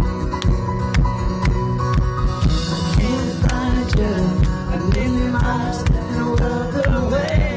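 Live band playing a pop-rock song over a concert PA, drums keeping a steady beat of about two hits a second under guitar.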